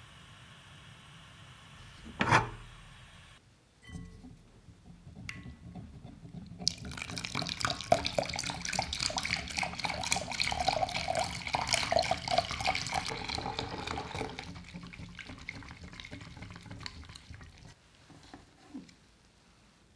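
Warm milk poured in a thin stream into a glass bowl of beaten eggs while a wire whisk stirs, the whisk's wires ticking rapidly against the glass. A sharp knock comes about two seconds in and a smaller one near the end.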